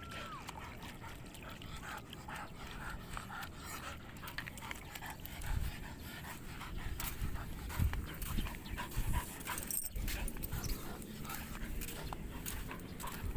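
A dog panting steadily, with a few low thuds around the middle.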